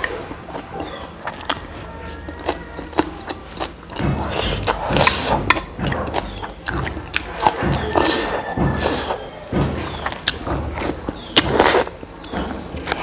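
Close-up eating sounds: chopsticks clicking repeatedly against a plate, chewing, and loud slurping of noodles, the loudest slurp near the end.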